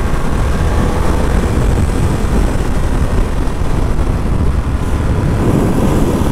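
Ducati Monster's twin-cylinder engine running at a steady cruise on the road, mixed with a dense, even rush of wind noise.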